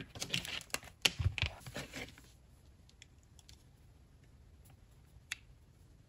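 A run of small plastic clicks and knocks as a Craftsman 82140 digital multimeter's rotary dial is turned to its 200-ohm range and its test probes are handled, then near quiet with one more single click about five seconds in.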